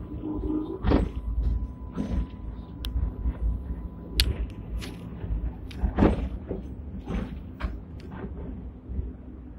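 Hong Kong Millennium double-decker electric tram No. 169 running, heard from inside the lower deck: a steady low rumble with frequent clunks and rattles from the car body and fittings, the loudest about a second in and again about six seconds in.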